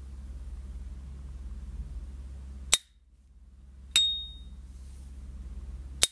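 S.T. Dupont lighter's hinged metal lid snapping shut with a sharp click about two and a half seconds in. It flips open again with the brand's short, high ringing 'cling' about four seconds in, then snaps shut again at the very end.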